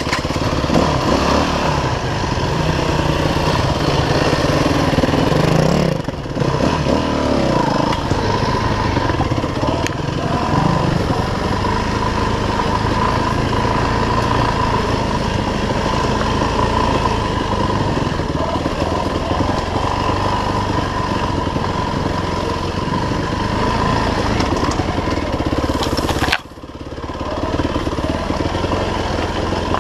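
Off-road motorcycle engine running as the bike is ridden along a dirt trail. The engine note drops suddenly near the end, then picks up again.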